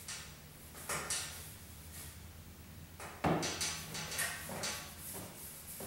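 Cloth rag rubbing wood stain onto a wooden tomahawk handle in short strokes. A sharp knock a little past halfway is the loudest sound, followed by more rubbing and handling.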